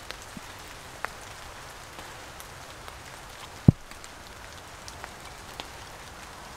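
Steady rain falling, with scattered drops ticking close by, and one short low thump a little past the middle.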